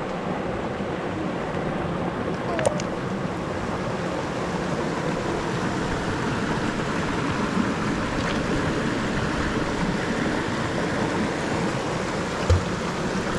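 A shallow rocky river flowing, a steady wash of water, with two light clicks, one early and one near the end.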